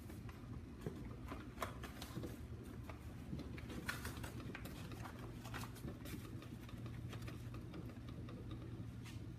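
A tablespoon scooping ground coffee from a container: scattered small clicks and scrapes at irregular moments, over a low steady hum.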